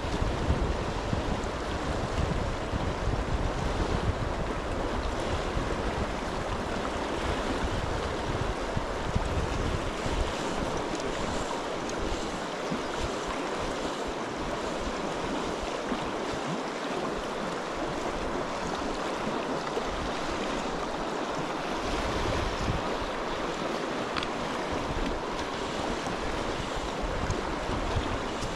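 Steady rush of river water, with gusts of wind buffeting the microphone as a low rumble that eases off midway and returns near the end.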